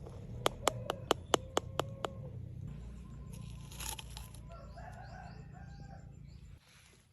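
A quick run of about eight sharp knocks, about five a second, then short falling chirps from birds, likely chickens.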